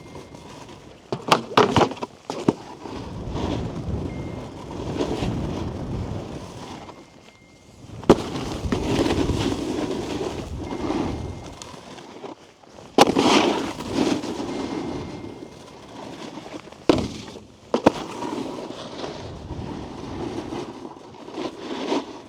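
Snowboard scraping and carving over packed snow in long swells, broken by several sharp knocks and slaps as the board lands and strikes terrain-park features.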